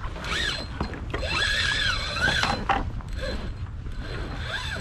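Fishing reel working against a hooked jack crevalle on a light rod: its drag gives line with a mechanical whine whose pitch rises and falls in a few sweeps as the fish runs.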